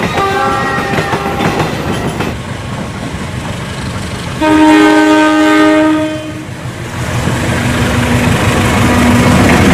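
CC206 diesel-electric locomotive sounding its multi-tone horn for about two seconds as it approaches, then its engine and wheels on the rails growing louder as it passes close. A shorter horn blast from another passing train comes near the start.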